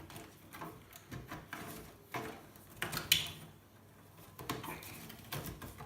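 Scattered light clicks and knocks of hard plastic and metal parts being handled inside an old Pentium III PC tower as its RAM stick is unlatched and pulled from its slot.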